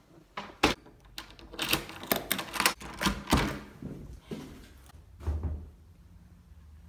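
A series of irregular knocks, clicks and thuds, as from handling objects or a door, with a low rumble underneath.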